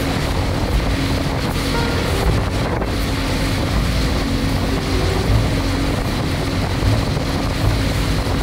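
Mercury 135 Optimax V6 two-stroke outboard running steadily with the boat under way, a constant drone under heavy wind buffeting on the microphone and the hull slapping through the chop.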